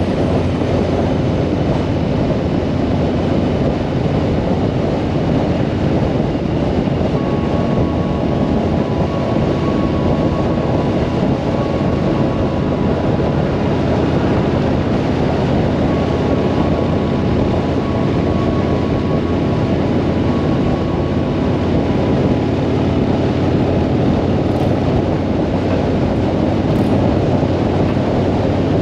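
Harley-Davidson motorcycle cruising at a steady speed: a dense rush of wind over the microphone mixed with the steady drone of the V-twin engine.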